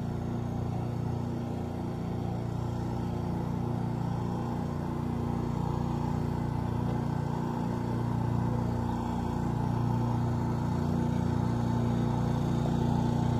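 A pressure washer skid's 420cc gas engine drives a 7.1 GPM AR pump. It drones steadily and grows gradually louder toward the end.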